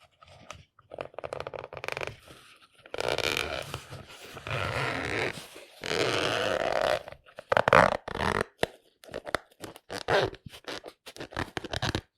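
Zipper on a glasses case pulled back and forth, each pull a rasp of the teeth. The first pulls are slow and last a second or so; from about halfway in they come as many short, quick zips.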